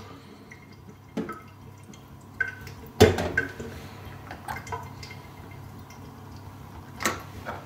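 Water poured from a wine glass into a small measuring glass, with short plinking drips. A sharp glass knock about three seconds in and a few lighter clicks of glass follow.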